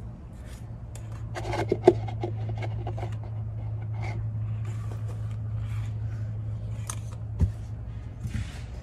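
Scattered clicks, taps and scrapes of hard plastic being handled as a small 5-volt submersible pump is set on top of a plastic container, with a sharp click about two seconds in, over a steady low hum.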